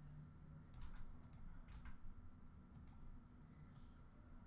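Several faint computer mouse clicks, some in quick pairs, over near-silent room tone.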